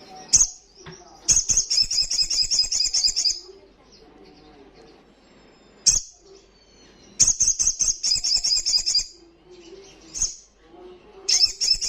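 Sogon, a small nectar-feeding songbird, singing in three bouts of rapid, high-pitched chattering notes, each bout about two seconds long, with single sharp call notes between them.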